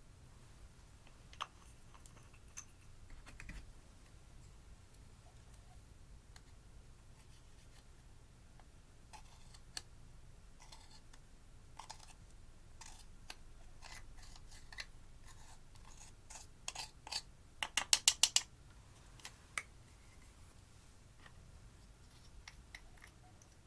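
Small clicks and scrapes from hands working slime and eyeshadow, scattered and faint, with a quick run of about eight sharp clicks around eighteen seconds in.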